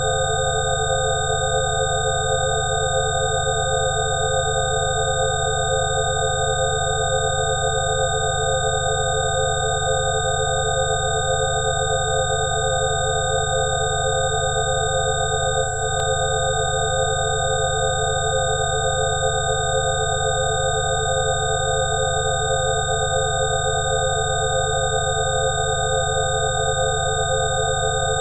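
Several steady electronic sine tones held together as a 'healing frequency' drone, the middle pitches wavering slowly, over a low steady hum. A brief click about halfway through.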